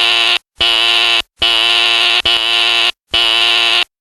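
Fire alarm horn sounding in loud, repeated blasts, about four of them, each from under a second to about a second and a half long, with brief gaps between.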